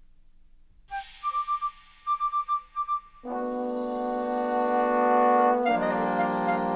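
Recorded jazz-orchestra music. After a near-silent first second, a bright accent and quick groups of short repeated high notes play, then from about three seconds in a full, sustained brass chord comes in and shifts to a new chord near the end.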